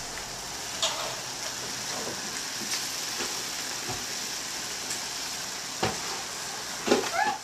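Enamel pot of water boiling on a gas stove with pelmeni cooking in it: a steady bubbling hiss, with a few light clicks and knocks, several of them near the end.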